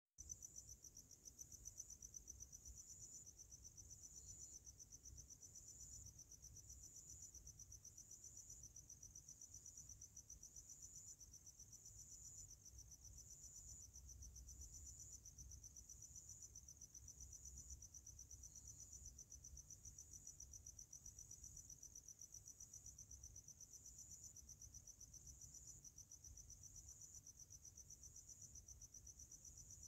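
Crickets chirping: a faint, continuous high-pitched trill of rapid pulses, with a brighter phrase recurring a little more than once a second.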